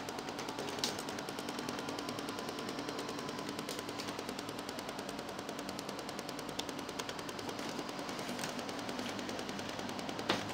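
Strip chart recorder running, its chart drive ticking rapidly and evenly as the paper feeds under the pen, over a steady low hum. A single sharper click comes near the end.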